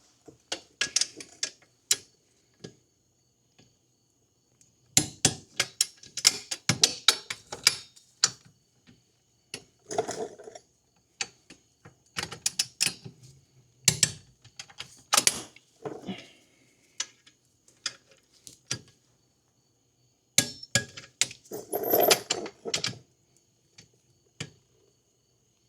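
Click-type torque wrench ratcheting in several bursts of rapid clicks with pauses between, as the rear axle clamp bolts of a Kawasaki KFX90 ATV are torqued down to 48 foot-pounds.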